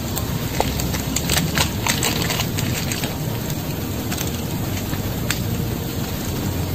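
Campfire crackling over a steady hiss, with a run of sharp woody cracks and snaps about one to two and a half seconds in and one more crack later.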